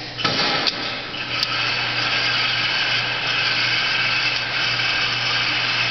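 Electric target carrier motor running with a steady whir and low hum, starting with a clatter about a third of a second in, with a couple of sharp clicks soon after.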